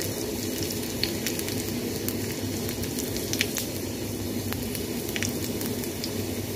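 Coconut oil frying curry leaves and small shallots in a small steel ladle over a gas flame: a steady sizzle with scattered sharp crackles and pops.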